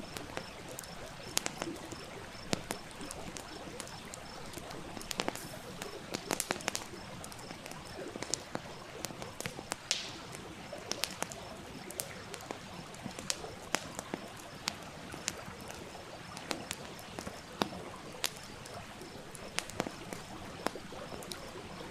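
Wood campfire crackling, with irregular sharp pops and snaps over a steady rushing hiss of a nearby stream.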